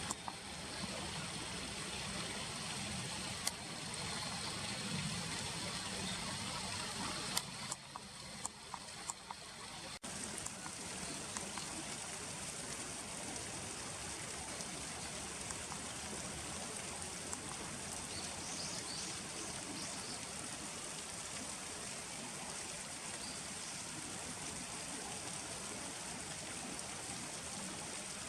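Steady rushing of a river flowing over its bed, with a few sharp clicks about eight seconds in.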